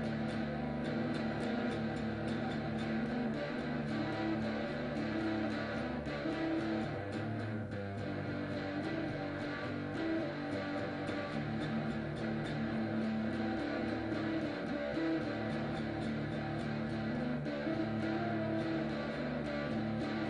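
Guitar music: held, overlapping chords with rich overtones at a steady level, overlaid by many faint, rapid ticks.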